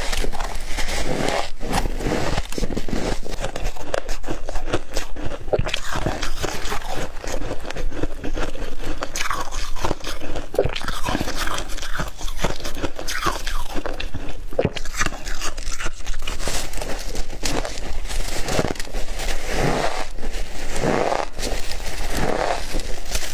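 A person biting and chewing crunchy shaved ice, a steady run of loud crunches with hardly a pause.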